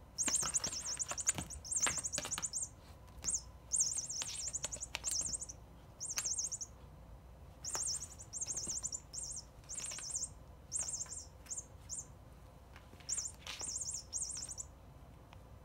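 A cat's squirrel toy giving out electronic chirping as the cat bats and bites it: many short, high, rapid trills that start and stop, set off again and again, with rustling and tapping of the toy's cardboard tag under the cat's paws.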